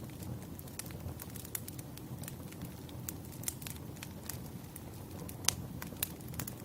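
Wood fire crackling, with irregular sharp pops and snaps over a low, steady rumble. One louder snap comes about five and a half seconds in.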